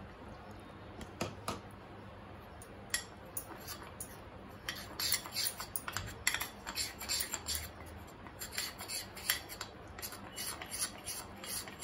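Metal spoon stirring a thick gram flour (besan) batter in a glass bowl, with rapid repeated scrapes and clicks of the spoon against the glass, coming thick and fast from about five seconds in.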